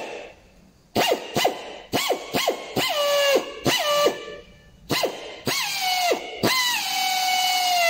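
Air drill whining in short trigger bursts, each spinning up and settling on a steady pitch, then held running continuously near the end as it drills out the broken-off brake-disc retaining screw in the wheel hub.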